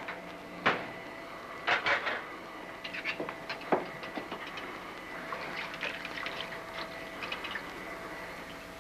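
Dishes and kitchenware clinking and clattering in a kitchen sink, with a few sharper knocks in the first four seconds and a run of light clinks later on. A faint steady whine runs underneath.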